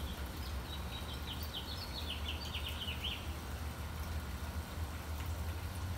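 A small songbird chirping: a quick run of about ten short, falling notes lasting about three seconds, starting about half a second in, over a steady low background rumble.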